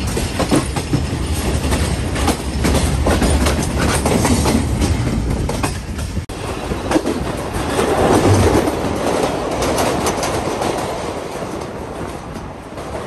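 Passenger train running at speed: wheels clacking over rail joints amid a steady rumble and rush of track noise.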